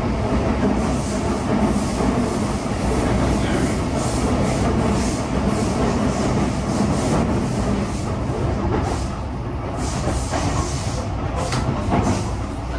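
Sotetsu 20000 series electric commuter train running at speed, heard from inside the car: a steady rumble of wheels on rail with faint regular ticks about twice a second. The sound thins briefly about nine seconds in as the train comes out of a covered section into the open.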